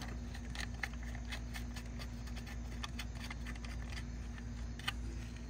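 Light, irregular clicks and taps of the locknut inside a 90° conduit elbow being worked loose by hand, with one sharper click near the end, over a steady low hum.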